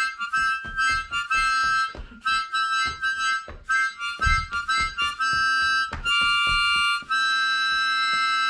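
Music on a small wind instrument: a run of short, repeated notes and chords, then longer held chords in the second half.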